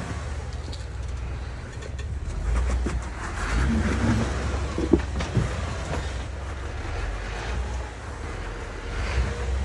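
Jeep Wrangler's engine running at low revs as it crawls over rocks, with scattered knocks and scrapes from the tyres and underside on stone; the sharpest knock comes about five seconds in.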